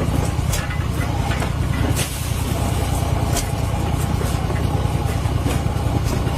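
Engine of an old heavy machine running steadily with a low, fast-pulsing note, with a few sharp clicks over it.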